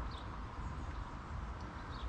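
Wind buffeting the microphone in a steady low rumble, with a few short bird chirps, one just after the start and one near the end.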